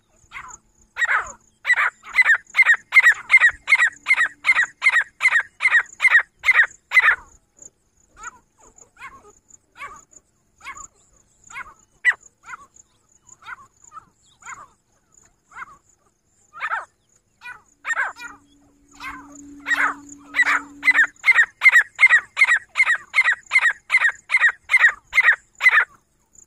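Female grey francolin calling: a long run of loud, harsh notes repeated at about three a second, then softer scattered notes, then a second long rapid run near the end.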